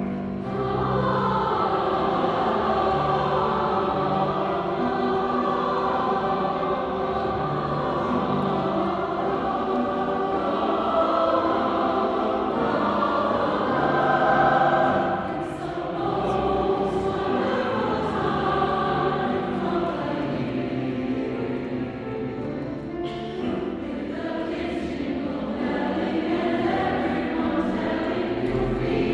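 A choir singing; the voices swell louder about halfway through, then ease back.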